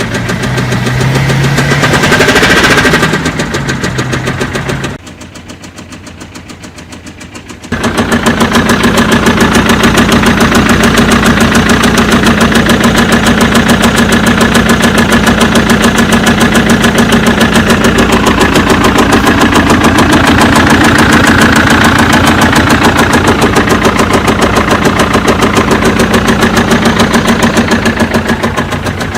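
BMW 1 Series 2.0 L diesel engine running with a fast, regular tapping knock, the abnormal "tap tap tap" noise in the engine. The engine revs briefly near the start, drops quieter for a few seconds, then runs steadily and loudly.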